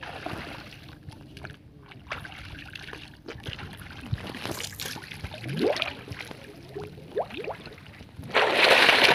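Water sloshing and gurgling while air bubbles rise and break the surface from someone under the water, with a loud splash near the end.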